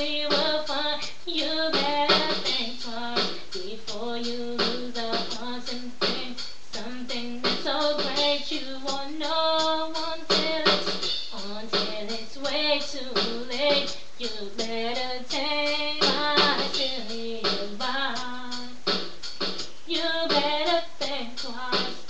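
A song: a woman singing a melody over a backing track with regular drum hits.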